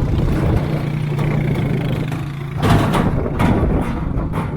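A 4x4 vehicle passing close on a rough track: a steady low engine hum, then louder rough noise about two and a half seconds in that comes in surges and fades.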